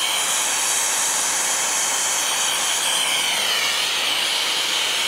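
TurboTorch air-acetylene torch with an 8 tip burning, a loud steady hiss with a faint high whistle in it, as the flame heats a 7/8-inch copper joint for brazing.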